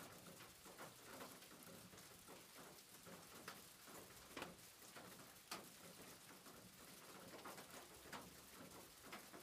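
Near silence: faint room hiss with a few scattered soft clicks.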